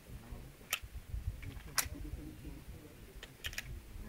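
A few sharp clicks over a quiet background: one about a second in, another near the middle, and a quick group of three near the end.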